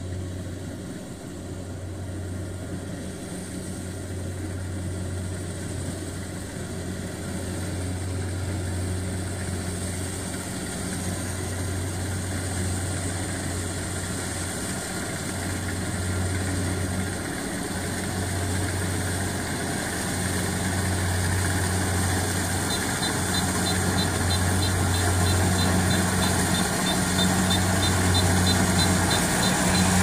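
Kubota DC-70 Plus rice combine harvester's diesel engine running steadily as the machine harvests, a low even hum with a rushing mechanical haze above it, growing louder as it comes closer.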